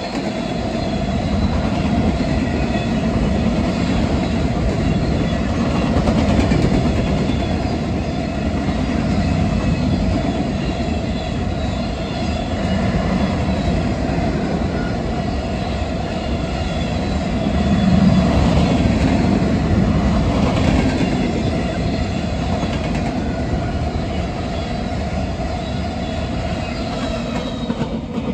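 Freight train of covered hopper cars rolling past on steel wheels: a steady rumble of wheels on rail with a thin, steady ringing tone from the wheels, easing slightly as the last car passes at the end.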